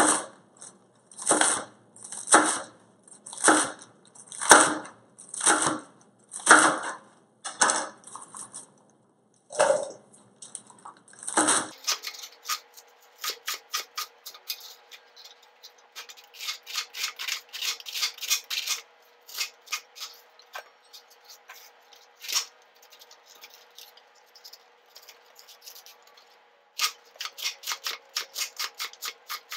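A chef's knife chopping napa cabbage leaves and striking a plastic cutting board. The cuts come evenly, about one a second, for the first twelve seconds, then switch to quicker, lighter runs of chops.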